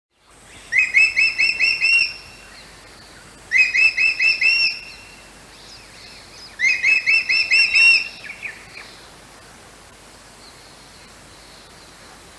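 A bird singing three phrases a couple of seconds apart, each a quick run of six or seven alike ringing notes, about five a second.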